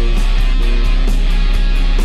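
Loud rock music with guitar and a steady drum beat.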